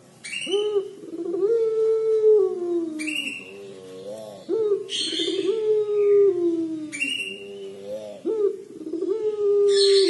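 A Barbary dove of the puter pelung type cooing in the drawn-out 'crying' (menangis) style. It gives three long coos, each rising quickly and then sliding slowly down in pitch.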